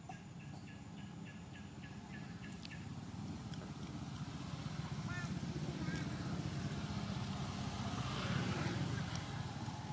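Low engine rumble of a passing motor vehicle, growing louder and peaking near the end. A quick run of short, evenly spaced high chirps, about three a second, sounds in the first few seconds.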